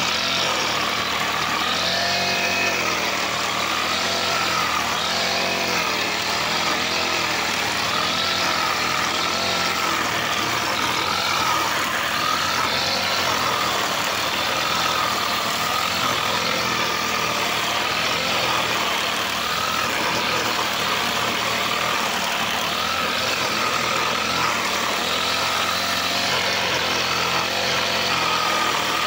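Brush cutter's small engine running at high speed while its spinning nylon-line head cuts tall grass. The engine's pitch wavers up and down every second or so as the line bites into the grass.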